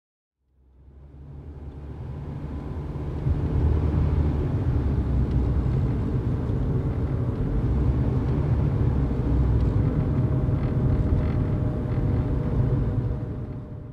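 A low, steady rumble that fades in over the first few seconds and fades out near the end, with a faint held tone above it.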